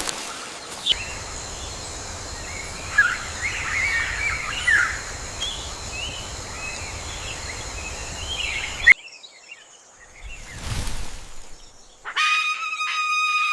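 Forest ambience: small birds chirping over a steady hiss and high drone, which cuts off suddenly about nine seconds in. After a quieter stretch with one whoosh, a long, steady, loud pitched call with overtones, falling slightly, starts about a second before the end.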